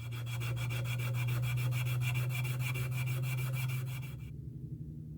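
Abrasive scrubbing on the steel frame of a Millers Falls hacksaw to uncover the maker's stamp: a steady low hum under a fast, even rasp, stopping about four seconds in.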